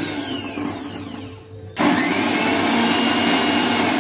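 Electric mixer grinder grinding onions to a paste in its small steel jar. The motor winds down as it is switched off about a second in, then starts again abruptly near two seconds in and runs steadily.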